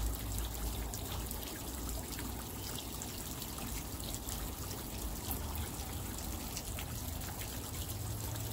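Steady outdoor background noise: an even hiss like trickling water, with a low rumble and scattered faint ticks. It cuts off suddenly at the end.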